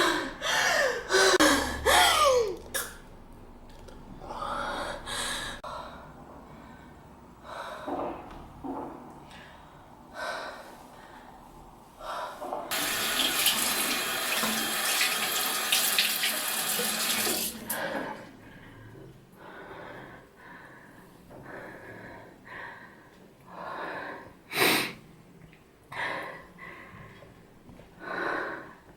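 A water tap running into a sink for about five seconds in the middle, among scattered short knocks and rustles. A few sliding voice-like sounds come in the first couple of seconds, and a sharp knock near the end.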